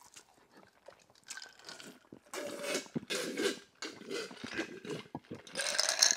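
A man making wordless vocal sounds in irregular bursts, louder from about two seconds in. Near the end he drinks from a glass jar of iced water.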